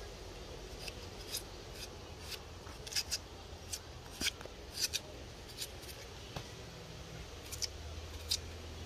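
Large kitchen knife slicing a raw potato held in the hand: about a dozen crisp, irregular cutting snicks as each slice is cut off.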